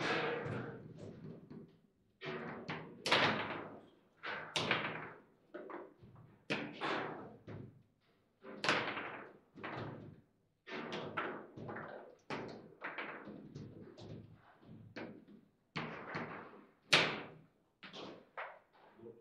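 Table football (foosball) table in play: a quick, irregular run of hard knocks and clacks from the ball being struck by the rod figures and the rods banging in the table, with the loudest bang near the end.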